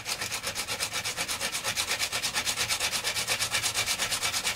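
Carbon brush for an angle grinder being rubbed by hand against an abrasive in quick, even back-and-forth strokes, several a second, to take its thickness down so it fits its holder.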